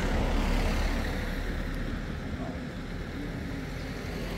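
Low, steady rumble of a motor vehicle with road noise, loudest in the first second or so and then easing a little.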